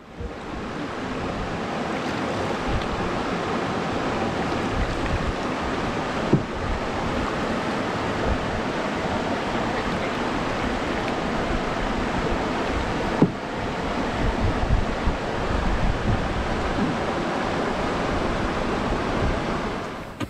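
Steady rushing noise of white water running over rocks into a lake, with no change in level. Two faint ticks come about six and thirteen seconds in.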